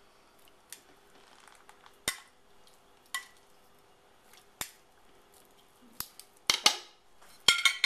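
Metal kitchen tongs clinking against the glazed ceramic crock of a slow cooker and snapping shut as raw chicken breasts are lowered into the soup: sharp single clinks a second or so apart, then a quick run of clatters near the end.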